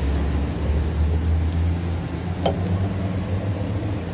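Coin-operated tyre air machine's compressor running with a steady low hum, with one short click about two and a half seconds in.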